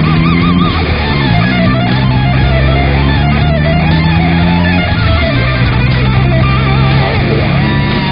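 Background music: a loud, distorted electric-guitar rock track with sustained, wavering lead notes.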